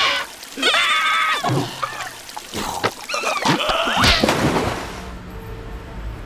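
Cartoon soundtrack of wordless, squeaky character vocalizations that slide up and down in pitch, mixed with comic sound effects. A sudden hit comes about four seconds in, then a low steady hum.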